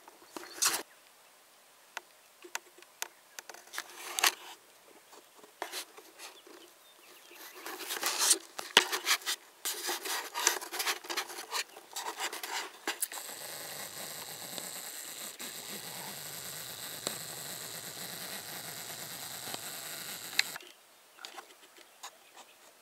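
Rubbing, scratching and clicking from the camera being handled and brushing against things. About thirteen seconds in, a steady hiss starts, and it cuts off suddenly about seven seconds later.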